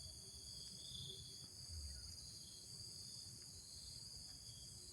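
Faint, steady, high-pitched chorus of insects such as crickets or cicadas, with a few faint low notes from a distant wild spotted dove cooing.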